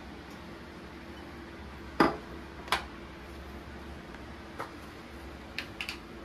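A few sharp knocks and clinks of kitchen utensils against cookware, the loudest about two seconds in and three quick ones near the end, over a steady low hum.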